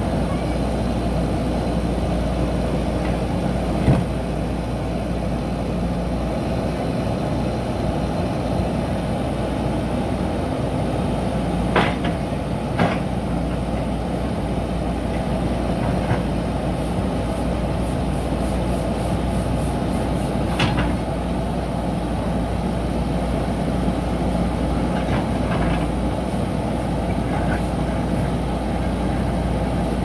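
JCB 3DX backhoe loader's diesel engine running steadily while the backhoe works, with a few sharp knocks of the bucket on brick and concrete rubble, the loudest about four seconds in and a pair about twelve seconds in.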